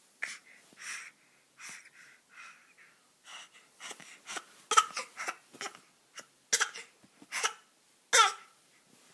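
A five-month-old baby making fake coughs: a run of short, breathy, put-on coughs with a little voice in some, louder and coming faster in the second half.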